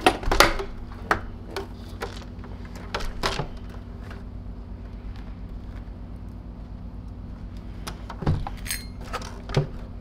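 Scattered clicks and knocks of hard plastic parts as the Zero G F3D vacuum's housing is pulled apart from its base and motor, several in the first few seconds and a few more near the end.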